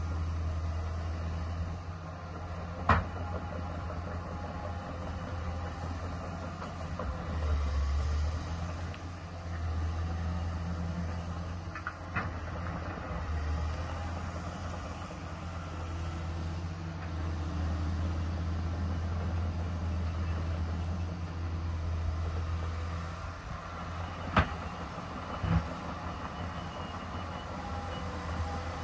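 Bulldozer's diesel engine running, its low drone swelling and easing as it works, with a few sharp metallic knocks along the way.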